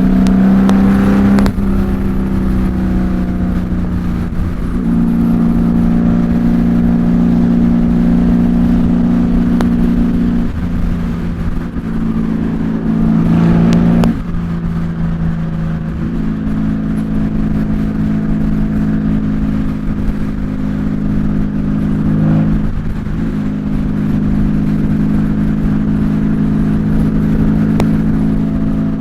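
Honda Valkyrie's 1520 cc flat-six running on the move through Cobra six-into-six exhaust pipes, heard from inside the rider's helmet with wind rumble underneath. The engine note holds steady, then shifts in pitch and level a handful of times (about a second and a half in, around four and a half, ten and a half, fourteen and twenty-two seconds) as the throttle changes.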